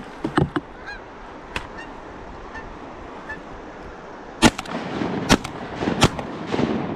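Canada geese honking as a flock flies off, then three shotgun shots in quick succession, less than a second apart, starting about four and a half seconds in; the first shot is the loudest.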